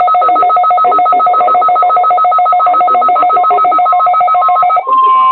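Electronic alert signal: two tones pulsing rapidly like a phone ring, then about four and a half seconds in it switches to the steady single-pitch NOAA Weather Radio warning alarm tone.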